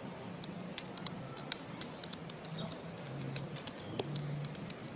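Outdoor ambience: a low hum that steps between a few pitches, with many scattered sharp ticks and clicks, a slightly louder knock about four seconds in.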